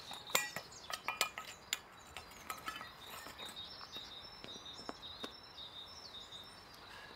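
A small metal pot clinking and knocking as a loaf baked in it is worked out, with a cluster of sharp clinks in the first three seconds and a few more later, over a steady high chirping in the background.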